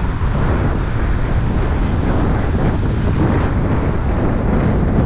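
Wind rumbling steadily on the microphone, mixed with the noise of car traffic on the road alongside.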